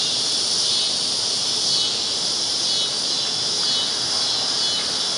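A loud chorus of cicadas buzzing in one steady, high-pitched drone.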